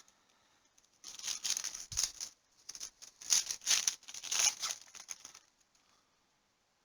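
Stiff trading cards sliding and scraping against each other as a pack is thumbed through, in a run of short scratchy swishes over about four seconds.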